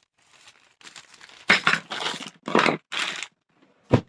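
Packaging of a new immersion water heater being torn open and handled: several loud bursts of crinkling and tearing, then a short sharp knock near the end.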